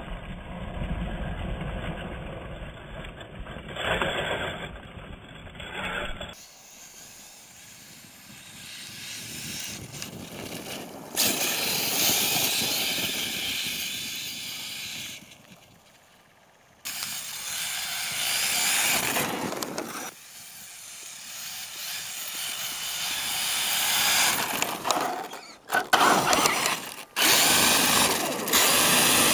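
HPI Savage Flux radio-controlled truck's brushless electric motor and drivetrain whining under hard throttle, running on a 4S LiPo. It comes in several loud stretches with quieter gaps between them.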